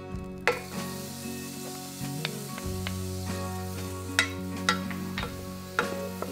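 Chopped onion sizzling in hot melted butter in a stainless steel saucepan, the sizzle starting about half a second in as the onion goes in. A wooden spoon stirring knocks against the pan several times, over soft guitar music.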